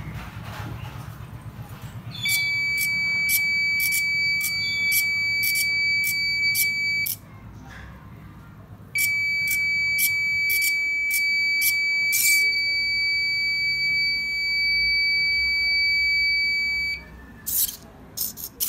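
An electronic buzzer on a hobby robot dog sounding a steady high-pitched tone, about five seconds long starting two seconds in, then again for about eight seconds after a short gap. Sharp ticks about twice a second run through the tone, and a few loose clicks follow near the end.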